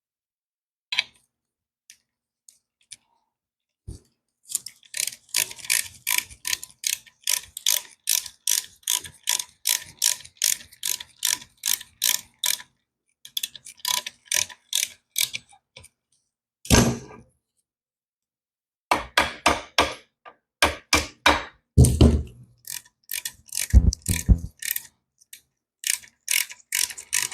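Hand ratchet wrench clicking in quick, even strokes, in several runs. A few heavier clunks of metal brake parts come in the second half.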